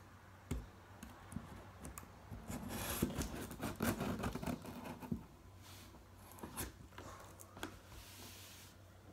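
Packing tape on a cardboard shipping box being slit with the blade of a pair of scissors and pulled away, with scattered taps, scraping and rustling of the cardboard; the busiest stretch of scraping comes around the middle.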